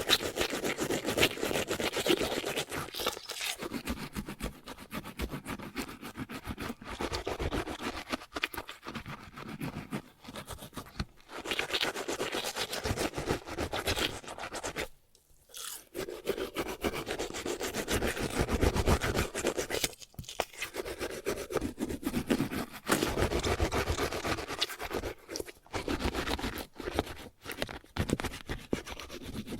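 A man brushing his teeth with a toothbrush, mouth open: quick scrubbing strokes that break off briefly about halfway through, then carry on.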